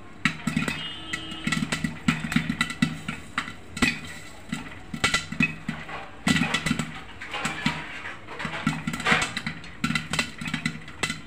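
Popcorn kernels popping rapidly inside a closed aluminium pressure cooker: a dense, irregular crackle of many pops a second, with the pot rattling.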